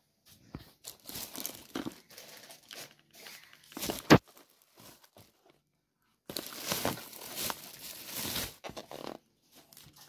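Thin plastic carrier bag rustling and crinkling as grocery packs are moved about and lifted out of it, in short bursts and then a longer stretch in the second half. One sharp, loud tap about four seconds in.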